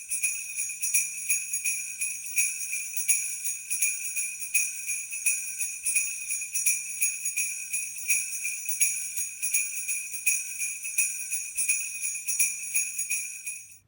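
Sleigh bells shaken in a quick, uneven rhythm, ringing continuously with a bright jingle, then cutting off suddenly near the end.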